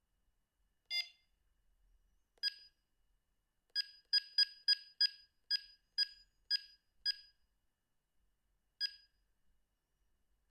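Sony CM-H777 mobile phone giving short electronic key beeps as its buttons are pressed, about a dozen at uneven spacing with a quick run in the middle. The first beep has a different pitch from the rest, which all sound the same.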